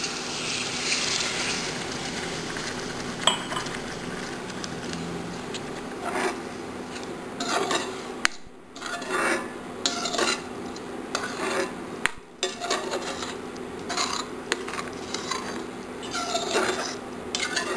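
Water poured into hot bean masala in a metal kadhai, hissing for the first couple of seconds, then a metal spatula stirring the curry and scraping the pan bottom over and over.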